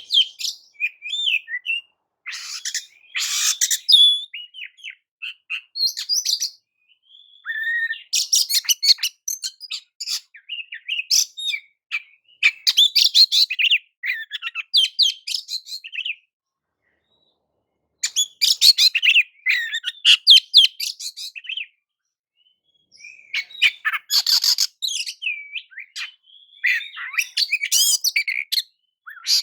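Oriental magpie-robin (kacer) singing in bursts of fast, varied high-pitched phrases, with two short breaks of silence.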